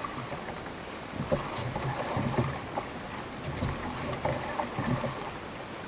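Water sloshing against the hull of a small boat at sea, with wind on the microphone and scattered short knocks.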